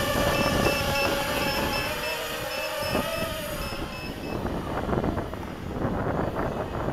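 Mini hexacopter's six brushless motors and props buzzing in flight, a steady pitched drone that wavers a little and fades after about four seconds as the craft flies off. Through the first half, a string of short high electronic beeps from its low-battery voltage alarm.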